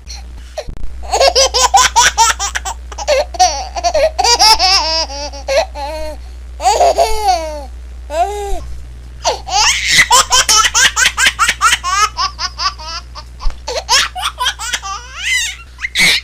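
A baby laughing hard: bouts of rapid, high-pitched laughter, several pulses a second, broken by short pauses for breath.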